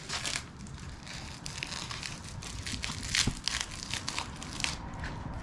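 Packing wrap being pulled, torn and crumpled off a wrapped table: a continuous run of irregular crinkling crackles.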